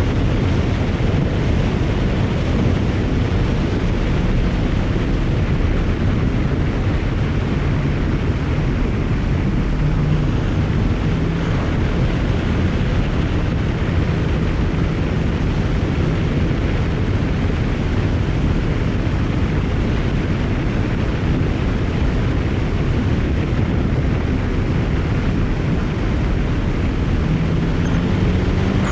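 BMW 335i's twin-turbo N54 inline-six driving at a steady pace, engine note under constant road and wind noise, with no blow-off valve release standing out.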